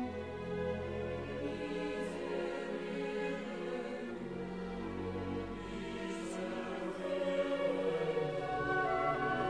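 Classical sacred music: a choir singing held chords with an orchestra, swelling a little louder about seven seconds in.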